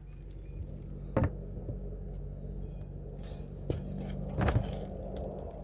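A steady low mechanical hum, with three sharp metallic clanks from hand tools working on the brake caliper bracket bolts.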